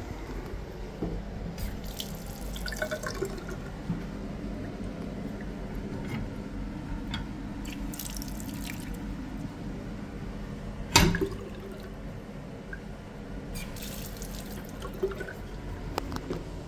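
Water running and dripping steadily, with small handling clicks and one sharp knock partway through.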